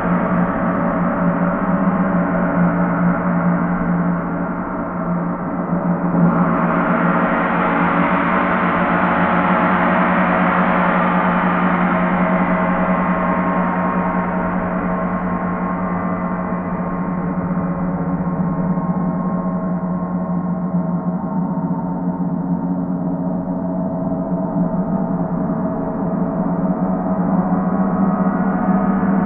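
Paiste planetary gong played as a continuous sustained wash, swelling brighter about six seconds in and then slowly dying down, over a steady hum.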